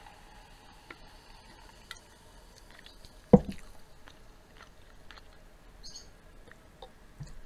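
Water pouring from a bottle into a glass jar: a faint, slightly rising tone that fades out in the first second or two. About three seconds in, a single loud thud of something set down on the table, then scattered small clicks and taps of handling and sipping.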